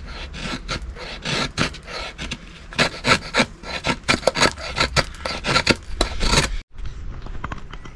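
A small folding pocket knife shaving curls off a wooden board in quick repeated scraping strokes, several a second, to make feather-stick tinder for a fire. The strokes cut off suddenly near the end.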